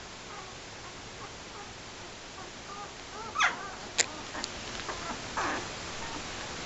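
Eight-day-old puppies whimpering and squeaking, faint short squeaks at first, then a louder cry about three and a half seconds in and another about five and a half seconds in. A sharp click comes about four seconds in.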